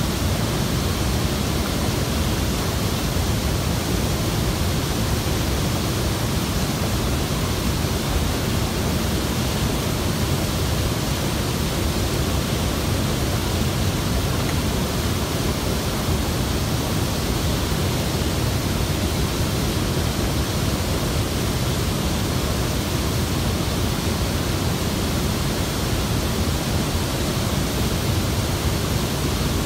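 Water rushing steadily over a dam spillway and churning through the white water below it, a constant loud noise with no breaks.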